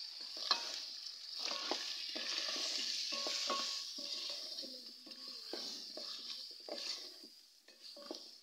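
Potatoes and tomatoes with spices sizzling in hot ghee in a pan, while a spatula stirs them, scraping and knocking against the pan in short irregular strokes. The sizzle and stirring die down near the end.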